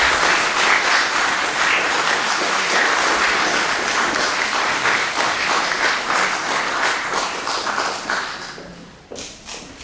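Audience applauding, the applause dying away about eight seconds in, with a few last scattered claps.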